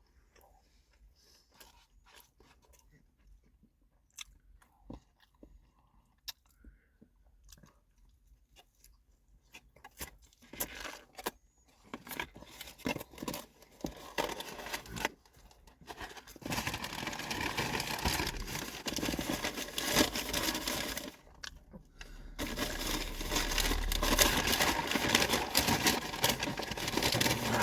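Close-up eating sounds: at first faint scattered smacks and clicks, then from about ten seconds in a dense crinkling and crunching of fast-food packaging and food being handled and chewed, getting louder, with a brief pause near the end.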